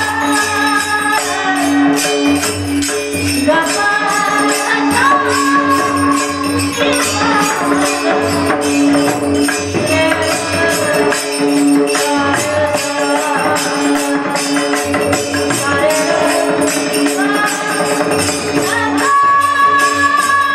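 A woman singing a Marathi devotional kirtan song with long held, gliding notes, over a steady drone and a regular jingling of small hand cymbals.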